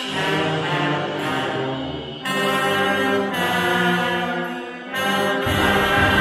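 Brass band of trumpets, saxophones and a sousaphone playing held chords in phrases. A new phrase comes in about two seconds in and again near five seconds, each after a brief dip.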